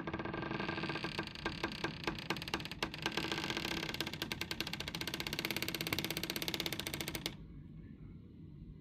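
Long drawn-out door creak: a train of rapid clicks, spaced apart at first, then packing together into one continuous creak, which cuts off suddenly about seven seconds in.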